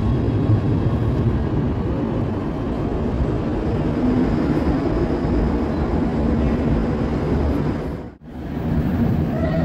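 Steady low rumble of a U-Bahn train in an underground station, with a faint humming tone in the middle; the sound cuts out for a moment near the end.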